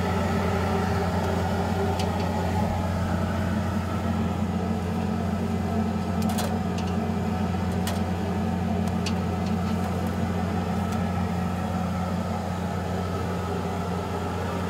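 Steady low machine hum of a street-food kitchen, with a few sharp clinks of metal utensils.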